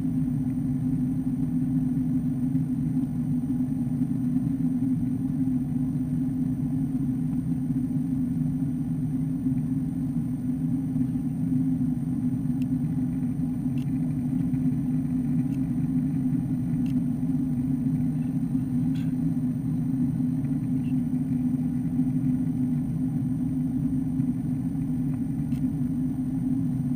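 Airbus A330-200 cabin noise in flight: the steady low drone of the jet engines and airflow heard from a window seat over the wing. A few faint ticks come through in the second half.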